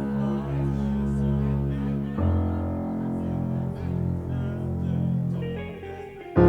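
Band music in rehearsal: sustained chords over a deep bass note, moving to a new chord about two seconds in and fading down near the end.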